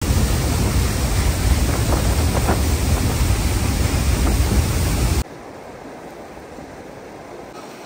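A loud, even rushing noise, heaviest in the low end, that cuts off abruptly about five seconds in to a much quieter steady hiss.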